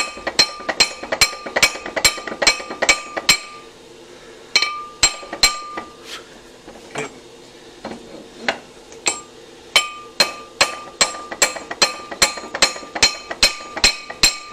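A hammer drives new wheel studs into the hub of a disc brake rotor. The blows come in quick runs of about three or four a second, with a sparser stretch of scattered blows near the middle. Each blow leaves the rotor ringing with a short, high metallic clink.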